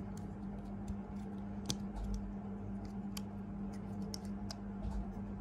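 Irregular plastic clicks and snaps as the parts of a small Transformers Core Class Noah Diaz Exo Suit action figure are moved and clipped into place by hand during transformation, with one sharper click about two seconds in. A steady low hum runs underneath.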